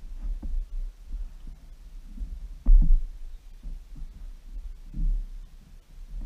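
Irregular low thumps and rumble from a fishing kayak rocking on the sea, picked up by a camera mounted on the hull. A sharper, louder knock comes a little before halfway.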